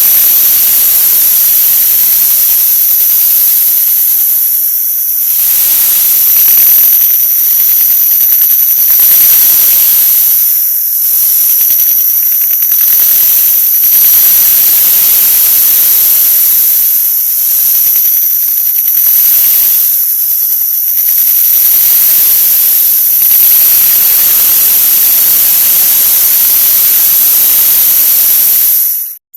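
A 'wah wah' sound effect sped up so far that it is now loud, harsh hiss-like noise with a steady high whine on top. It dips briefly every second or two, then cuts out abruptly right at the end.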